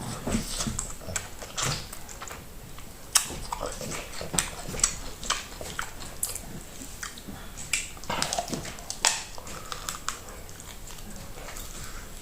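Close-up eating sounds: a person chewing and smacking while eating fufu with okra soup, a steady run of irregular wet clicks and smacks.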